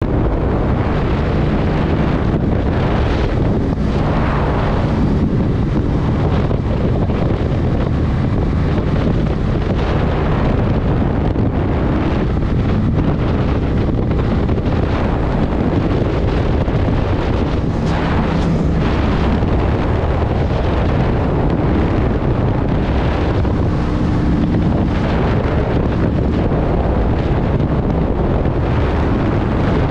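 Steady wind rumble on the microphone of a 2023 Kawasaki Vulcan 900 Custom riding at cruising speed, with the bike's V-twin engine running underneath.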